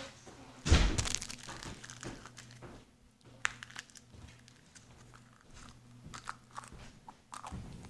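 Hollow plastic Easter eggs handled and pulled open close to the microphone. A loud knock comes a little under a second in, then a run of small scattered clicks and crackles.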